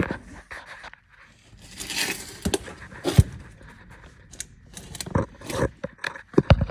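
Workshop handling noise: several sharp knocks and clunks of tools and parts being picked up and set down, with a rustling scrape about two seconds in.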